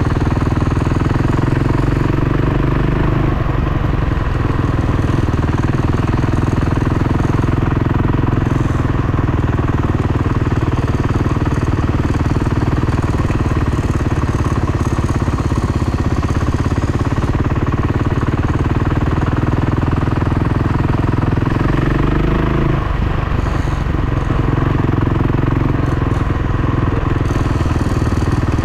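Dirt bike engine running under way at a fairly steady throttle, easing off briefly a few seconds in and again about two-thirds of the way through.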